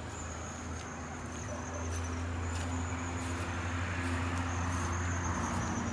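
Insects trilling in a steady high-pitched tone over a low, steady rumble, with soft scattered steps of someone walking.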